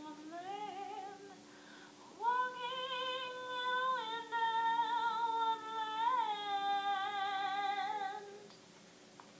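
A woman's voice singing a slow Christmas tune without clear words, close to humming, in long held notes with vibrato over a steady low held tone. It starts softly and grows louder about two seconds in, then fades near the end.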